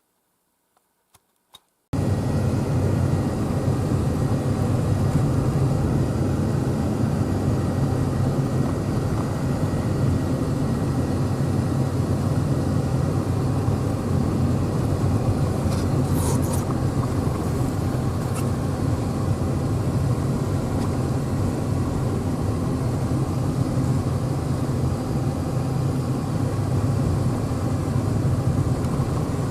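A vehicle driving steadily: an even engine and road rumble that starts abruptly about two seconds in after a near-silent gap, with a couple of faint ticks about halfway through.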